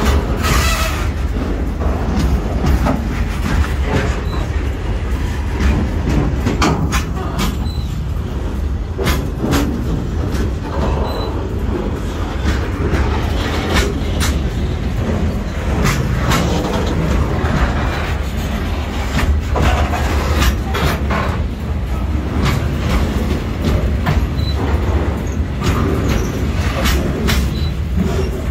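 Freight train of flat wagons loaded with steel coils rolling past close by, with a steady heavy rumble and frequent irregular sharp clacks from its wheels on the rails.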